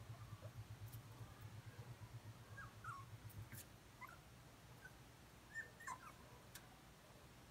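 Puppies giving faint, short whimpers and squeaks as they play, with a few light clicks and a low hum that fades out about halfway.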